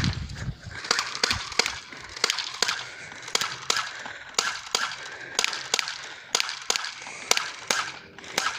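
BB gun firing shots in quick succession, about three a second, the BBs smacking into a paper target and the woodpile it rests against.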